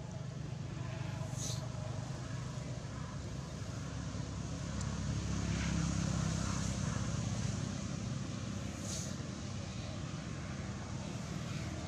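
Low rumble of a motor vehicle engine that swells about halfway through and then eases off again, with a few brief high chirps.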